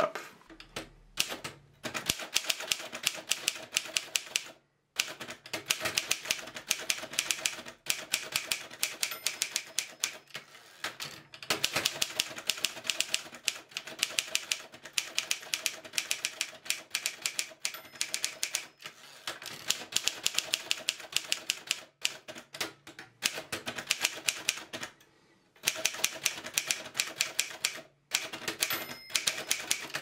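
1954 Alpina SK24 manual typewriter being typed on quickly: fast runs of keystrokes with the type bars clacking against the platen, broken by short pauses every few seconds.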